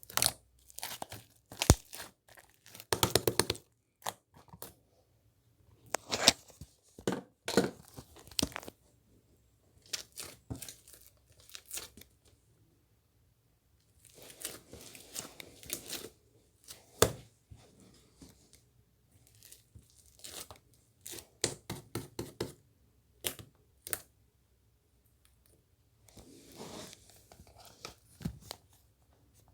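Hands squeezing and stretching slime mixed with soothing gel: irregular runs of sharp clicks and longer noisy squishes, with short pauses between.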